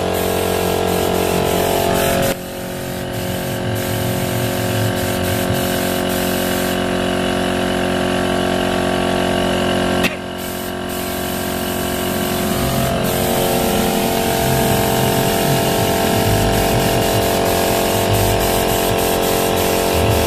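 Spray painting: the steady hiss of a compressor-fed paint spray gun over the running hum of its air compressor. The sound drops suddenly twice, about two seconds in and again about ten seconds in, and builds back up each time.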